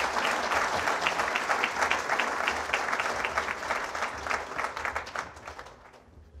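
Audience applauding, many hands clapping together, dying away in the last second or so.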